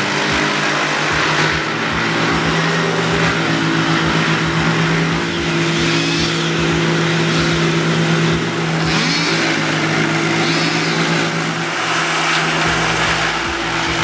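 Morbark drum chipper running at full speed while it chips a tree: a steady engine drone under a dense, noisy chipping sound, with a few sharp knocks early on. A deeper rumble joins near the end.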